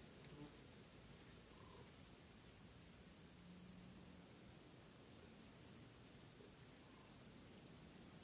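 Faint insect chirping: a high chirp repeating about twice a second over a steady high trill.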